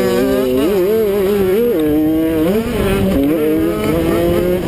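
Kawasaki KX85 two-stroke single-cylinder engine revving hard under race throttle. Its pitch climbs and drops in steps several times as the rider accelerates, shifts and rolls off, over a rough low rush of noise.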